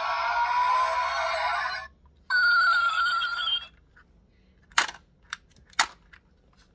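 The sound module of a 1:24 Koenigsegg One:1 diecast model playing a recorded engine-revving effect through its tiny speaker, rising in pitch and cutting off suddenly just under two seconds in, followed by a short second electronic sound effect with a wavering tone. Then a few sharp clicks as the model's doors are handled and swung open.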